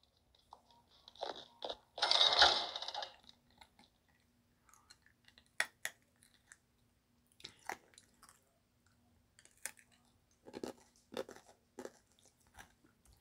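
Chewing and crunching close to the microphone: a longer crunch about two seconds in, then scattered soft clicks and smacks.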